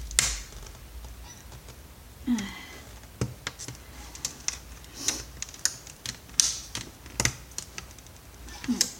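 Irregular clicks, taps and light scraping of plastic and metal parts of a Samsung monitor being handled and pried apart by hand, with a few brief rustles.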